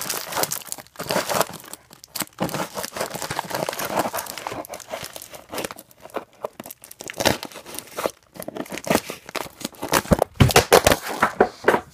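A taped cardboard parcel being cut and torn open, with tape ripping and plastic and paper packaging crinkling and rustling in irregular bursts, the loudest of them near the end.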